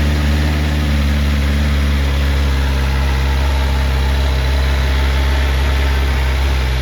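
BMW S1000RR sport bike's inline-four engine idling steadily, just after being started.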